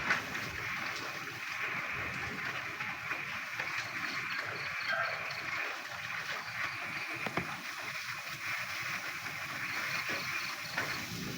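Frogs croaking in a chorus over the steady hiss of falling rain, with a high, rapidly pulsed trill coming in about four seconds in and again near the end.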